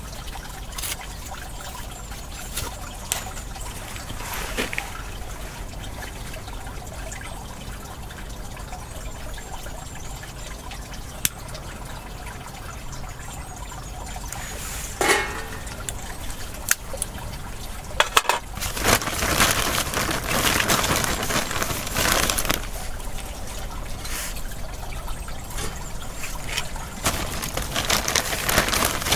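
Kindling being lit in a stainless steel Solo Stove Campfire wood stove: a brief flare of the lighting flame about halfway through, then crackling and rustling from the catching kindling, louder over the last ten seconds, over a steady trickle of water.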